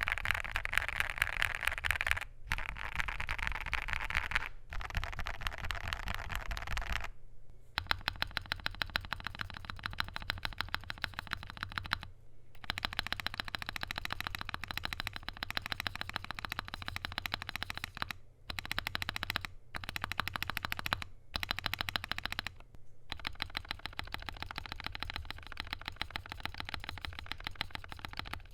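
Fast typing on a KBDfans Tofu65 2.0 mechanical keyboard with lubed and filmed WS Morandi linear switches, polycarbonate plate and PBT keycaps, in quick runs of key strokes broken by a few short pauses. About seven seconds in, the strokes turn brighter and sharper.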